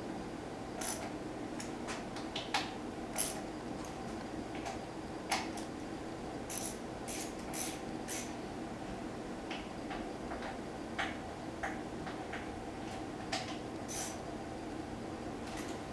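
Hand tools and small metal parts clicking and clinking irregularly as they are picked up and set down during engine assembly, over a steady low hum.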